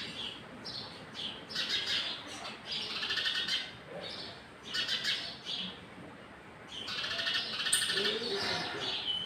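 Birds chirping in repeated short bursts of rapid twittering, with a lull about six seconds in and then a longer spell of chirping.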